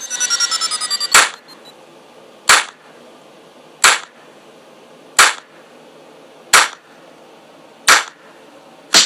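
Soundtrack music in a sparse break: a quick falling run of notes, then single sharp percussive hits, like claps or snare strikes, about every 1.3 seconds with quiet between them.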